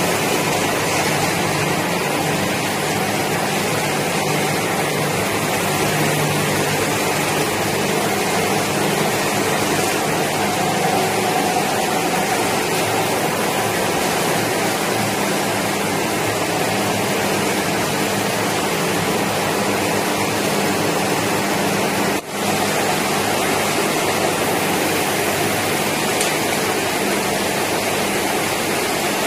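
Machinery of a fried banana chips production line running: a steady, even rush of noise with a low machine hum underneath, dipping briefly once about three quarters of the way through.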